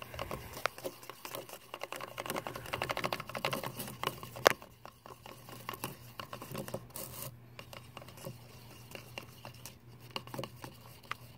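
A stirrer clicking and scraping against the sides of a plastic bowl as glue, water and baking soda are mixed. The strokes come fast and dense for the first few seconds, with one sharper tap about four and a half seconds in, then thin out.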